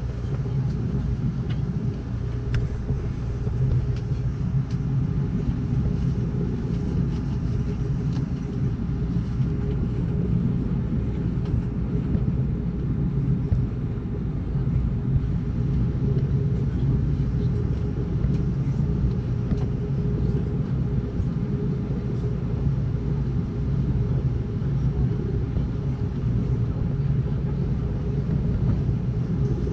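Amtrak Cascades passenger train running at speed, heard from inside the coach: a steady low rumble of wheels on rails with a few faint clicks.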